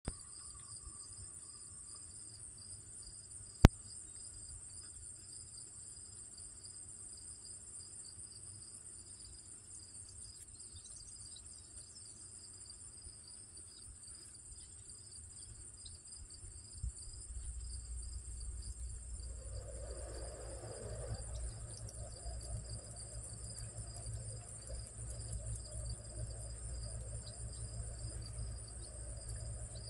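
A steady chorus of insects trilling, in two high, fast-pulsing pitches. A single sharp click comes a few seconds in, and a low rumble joins about halfway through.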